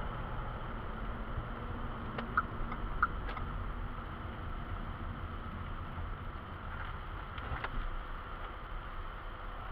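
Steady road and engine noise inside a moving car, heard through a dashcam microphone. A few short clicks or knocks come about two to three seconds in and once more near the end.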